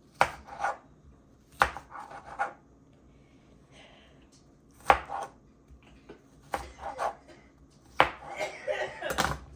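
Kitchen knife chopping an onion on a cutting board in slow, uneven strokes: a hard knock every one to three seconds, often followed by one or two lighter taps.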